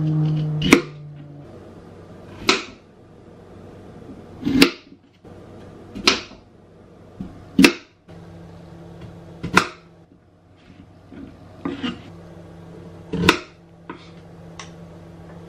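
Kitchen knife slicing through peeled raw potatoes and striking a bamboo cutting board: about eight sharp knocks, one every second and a half to two seconds, over a faint steady hum.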